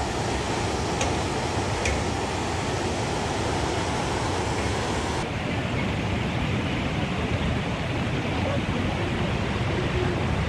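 Steady rushing roar of water from Niagara Falls, a dense even noise with no break. The highest hiss drops away about halfway through.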